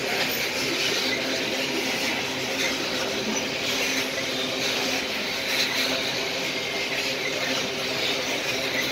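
Loaded coal gondola wagons rolling past on the rails: a steady run of wheel-on-rail noise with a few steady low tones under it.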